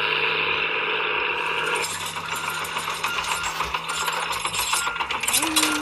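Plastic toy vehicle rattling and clicking as it is moved and handled, with quick irregular ticks from about two seconds in. Before that, a steady hum stops.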